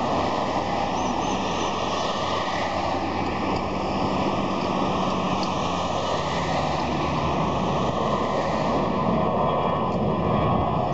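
A steady roar of road traffic passing close, mixed with the jet engines of an easyJet airliner at takeoff power as it lifts off and climbs away.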